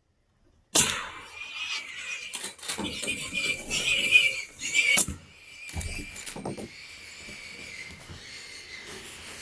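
A suppressed shot from a Marlin 1895 Trapper lever-action in .45-70 goes off about a second in, followed by feral hogs squealing and scattering. A second sharp report comes about five seconds in, and the squealing goes on more faintly after it.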